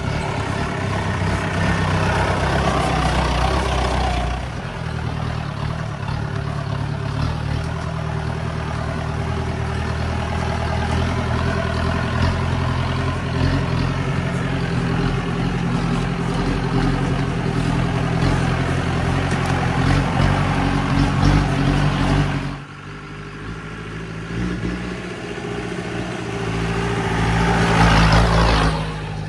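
Mahindra 4x4 jeep's diesel engine running under load while driving a dirt off-road track. The engine eases off about 22 seconds in, then builds up again, loudest just before the end.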